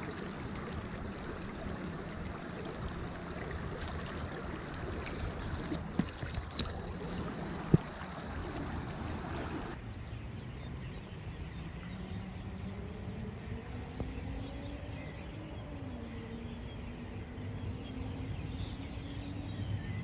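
Shallow creek water running and rippling over stones close to the microphone, with two sharp knocks about a second and a half apart. About ten seconds in it gives way to quieter running water with a faint hum that slowly rises in pitch.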